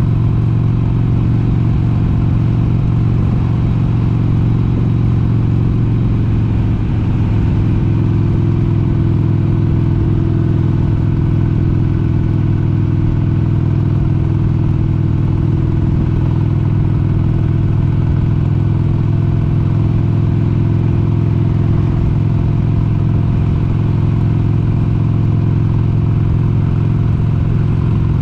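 1996 Harley-Davidson XLH883 Sportster's air-cooled 883 cc Evolution V-twin running at a steady cruise on the road, its engine note holding even throughout.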